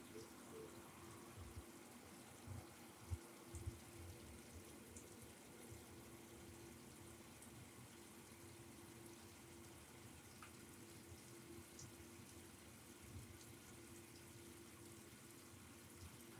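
Near silence: room tone with a faint steady hum and a few soft low thumps in the first few seconds and again near the end.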